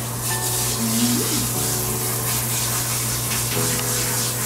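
Handheld shower sprayer running steadily, water spraying onto a dog's wet coat in a stainless steel tub.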